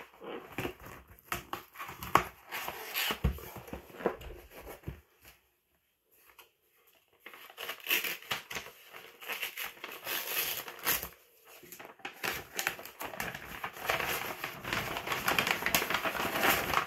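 A cardboard mailer box being opened, with a few knocks and scrapes. After a short pause, tissue paper rustles and crinkles at length as it is unfolded from around the contents.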